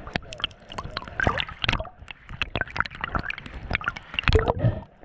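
Water gurgling and splashing with many irregular clicks and pops, as water moves around the diver's camera.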